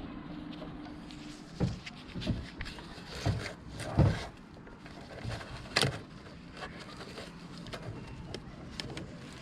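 Hand tools knocking and clinking against metal parts during work on a car engine: a handful of separate knocks, the loudest about four seconds in, then a few faint ticks.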